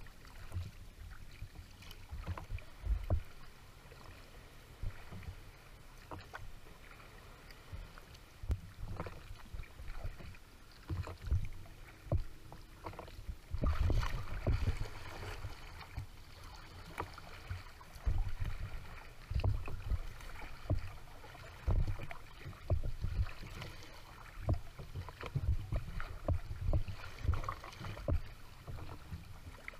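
A Kevlar/carbon-fibre sea kayak under way on open water: water splashing and slapping against the hull in irregular low thuds, heavier in stretches about halfway through and again later, over a steady wash of moving water.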